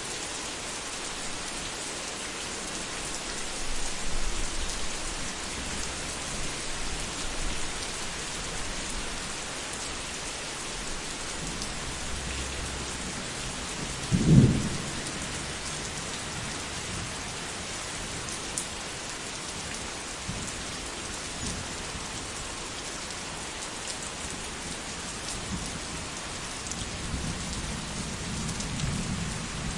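Thunderstorm: steady rain falling throughout, with low rumbles of thunder swelling a few seconds in, again before the middle and near the end. A sharp thunderclap about halfway through is the loudest sound.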